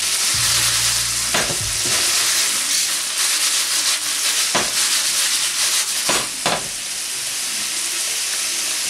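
Baby corn, water chestnuts and bell peppers sizzling in hot oil in a stainless steel skillet, a steady hiss broken by a few brief clatters and scrapes as the vegetables are tossed in the pan.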